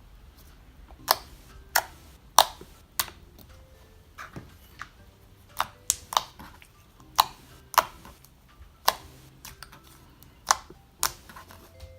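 Thick, glossy slime being pressed and stretched by hand, giving sharp, irregular pops and clicks as trapped air bubbles burst.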